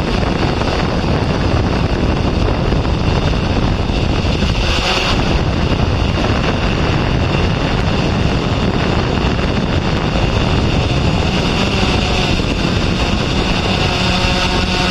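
A car driving the course, its running almost buried under steady, loud wind buffeting the microphone.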